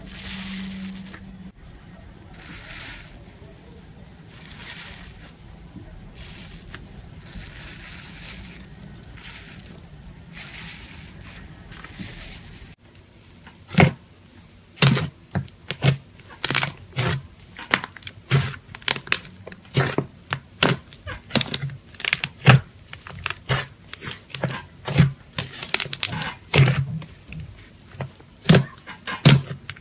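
Slime being squished and worked by hand: soft, repeated squelching swells for the first half, then, after an abrupt change, a run of sharp pops and clicks about one or two a second.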